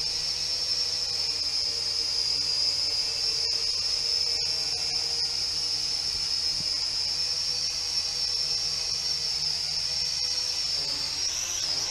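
Small quadcopter drone with propeller guards flying low, its motors and propellers giving a steady high-pitched whine that wavers in pitch near the end as the throttle is corrected.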